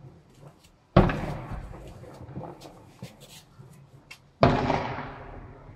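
Two fireworks shells bursting, each a sharp bang followed by a long echoing decay, about three and a half seconds apart, with scattered crackles between them.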